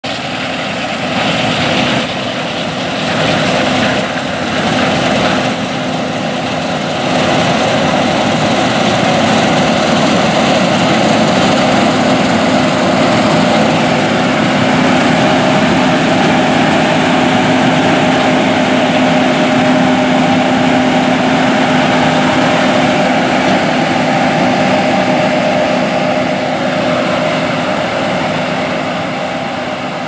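John Deere S780 combine harvesting wheat: a steady engine and machinery drone with a constant hum, louder from about seven seconds in.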